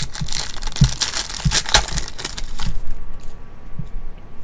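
A 2023 Panini Legacy football card pack's wrapper being torn open and crinkled by hand, a dense crackle lasting nearly three seconds. It is followed by a few faint clicks as the cards are slid out and handled.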